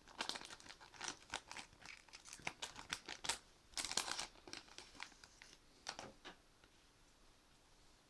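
Foil booster pack wrapper crinkling as it is handled, a run of short crackles, loudest around four seconds in, that stops about six seconds in.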